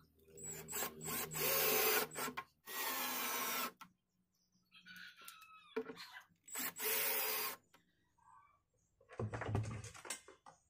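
Ozito 18V cordless drill driving screws into a speaker cabinet in several short runs of one to two seconds each. Near the end there is a dull handling bump.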